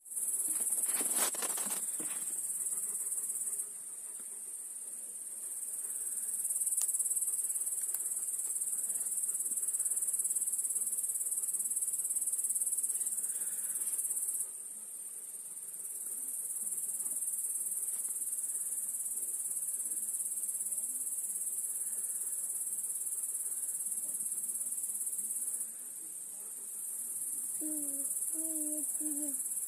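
Crickets chirring in a steady high-pitched chorus that dips quieter briefly about three times. A single knock sounds about a second in, and a short wavering vocal sound comes near the end.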